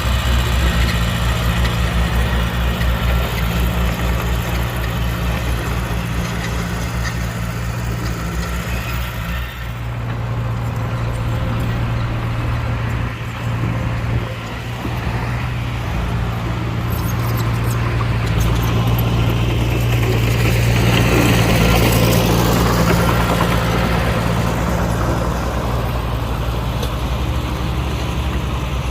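Heavy diesel engine of earthmoving machinery running steadily. A louder spell of rushing noise builds and fades about two-thirds of the way through.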